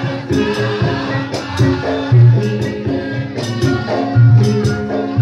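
Javanese gamelan accompaniment for lengger dance: a melody of pitched metal notes over deep held tones, with sharp percussion strokes.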